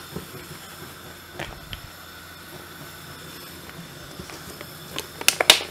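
Quiet steady hiss of room noise, with a few light clicks and taps and a quick run of sharper clicks near the end.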